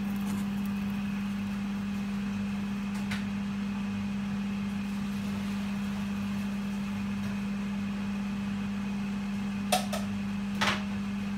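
Steady low electrical hum of a kitchen appliance or fan, with a faint click about three seconds in and two sharp knocks near the end.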